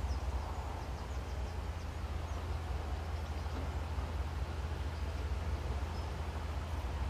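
Outdoor ambience: a steady low rumble, with a few faint, high, short bird chirps scattered through it.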